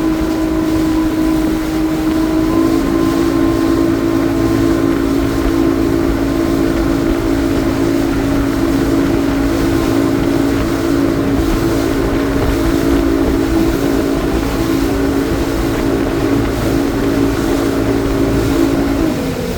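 Motorboat engine running at a steady pitch while the boat is underway, over low wind and water rumble. Near the end the engine note drops as the boat slows.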